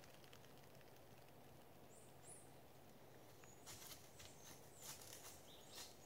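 Quiet woodland with two short high bird chirps, then, from a little past halfway, a run of sharp crackles and snaps of dry leaves and twigs being stepped on, with a few more chirps near the end.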